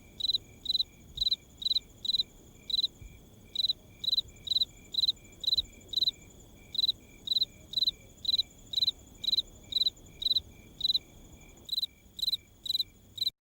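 Night ambience of crickets chirping, about two chirps a second, over a steady high-pitched insect trill and a faint low hiss. It cuts off abruptly near the end.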